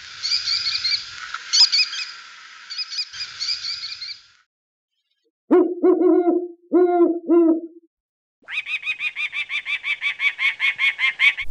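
An American kestrel's high, shrill chattering calls, then a great horned owl's series of deep hoots, then a peregrine falcon's fast run of harsh cacking calls, about seven a second.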